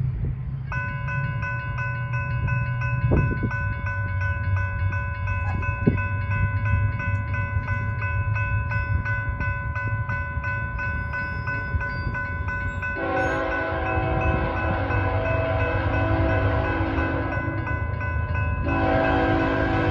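BNSF diesel locomotive's multi-chime air horn sounding one long steady chord over the rumble of the engines and train. About thirteen seconds in the chord shifts lower, and it breaks briefly near the end before sounding again.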